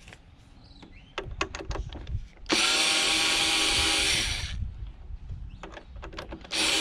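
Small cordless electric screwdriver running, backing screws out of the plastic base of a sewing machine: one run of about two seconds, and a second starting near the end. Light clicks of the bit and hands on the plastic come before the first run.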